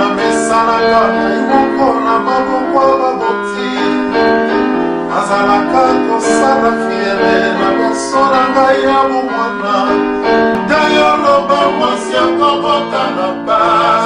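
A man singing a slow worship song over held electronic keyboard chords.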